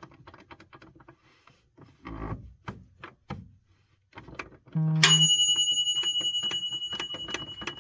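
Clicks and knocks from the Kobalt job saw's blade-height mechanism, its bevel gears and threaded rod being worked by hand; the mechanism binds and is stiff to move. About five seconds in comes a sharp hit followed by a high ringing tone that fades with a pulsing over about three seconds.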